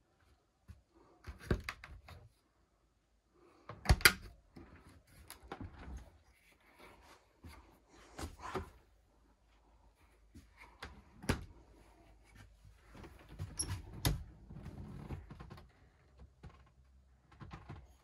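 A series of sharp clicks and thunks from cabinet doors being opened and shut, among them the door of a Dometic RV refrigerator, with light rustling between. The loudest knock comes about four seconds in.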